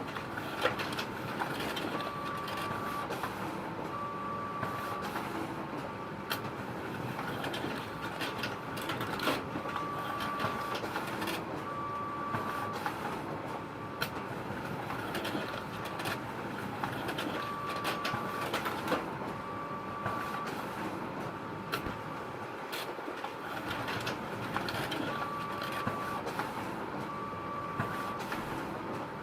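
Photocopier running: a steady mechanical whir with scattered clicks, and pairs of short tones repeating about every seven or eight seconds.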